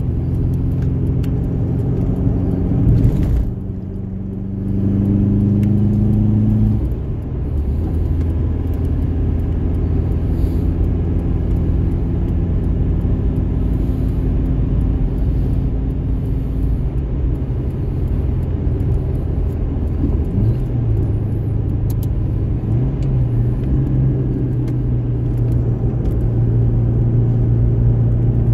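2003 Subaru Impreza WRX STi's turbocharged flat-four engine running on track. It dips briefly about three seconds in, pulls with a rising note for a few seconds, then drops at a gear change and runs at a steadier pitch that slowly climbs near the end.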